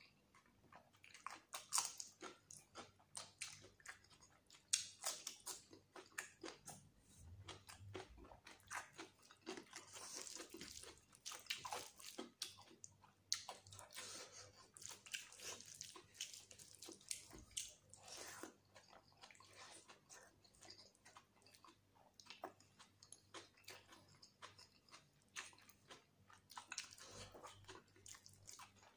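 Close-up chewing and lip-smacking of rice and chicken curry, with wet squishing as fingers mix rice and gravy on the plate: a steady run of irregular short smacks and clicks.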